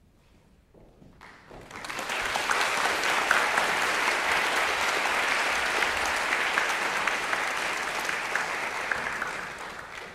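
Audience applauding. The applause starts about a second and a half in, holds steady and thins out near the end.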